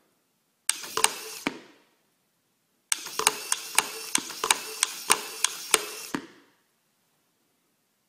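A homemade useless machine at work: its small servo whirs as it pushes the wooden lid open and drives a paddle out to flip the toggle switch back off, twice. A short burst with a few clicks comes about a second in, then a longer one from about three to six seconds with a quick run of sharp clicks and clacks from the switch and lid, about three a second, before it stops.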